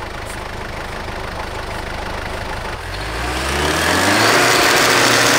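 Hyundai Galloper SUV engine idling, then revving up from about three seconds in as the stuck SUV tries to pull free of deep snow. A rising hiss of tyres churning snow comes in with the revs and peaks near the end.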